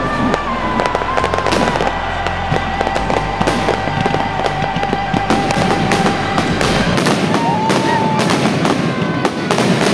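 Fireworks going off in dense, rapid crackling and popping throughout, with thin steady whistling tones above the crackle.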